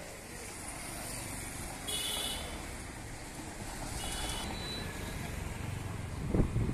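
Street traffic: a van drives past close by, with a steady engine and tyre rumble that grows louder toward the end. Two short high-pitched squeaks come about two and four seconds in, and a sharp thump sounds near the end.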